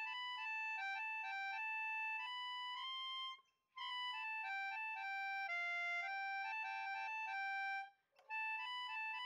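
Background music: a simple melody of one instrument's notes stepping up and down, breaking off briefly twice, about three and a half seconds in and near eight seconds.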